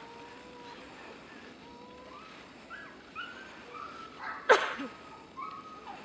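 Central Asian shepherd dog whining on the leash: a faint held whine, then a string of short high-pitched whimpering cries, with one loud short burst about four and a half seconds in.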